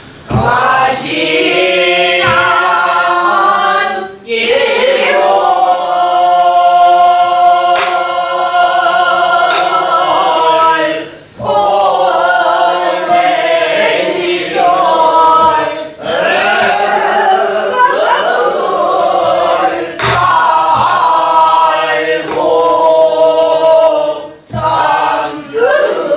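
A group of women singing a Namdo (southwestern Korean) folk song in unison, in long, wavering held notes, with a few strokes on a buk barrel drum marking the rhythm.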